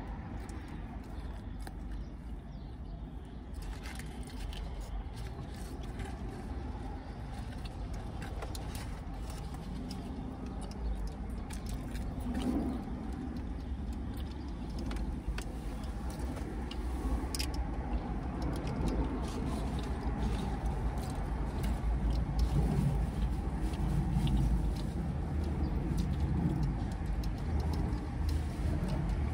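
Chewing and eating sounds, with scattered small clicks, over a steady low rumble that grows a little louder in the second half.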